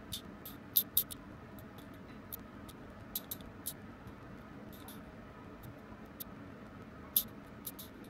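Small scissors snipping hair: a string of light, sharp clicks at an irregular pace, a few louder than the rest, over a faint steady room hum.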